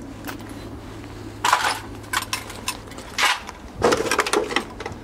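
Footsteps crunching and clinking on broken window glass scattered over the floor, a few uneven steps that come thicker about four seconds in.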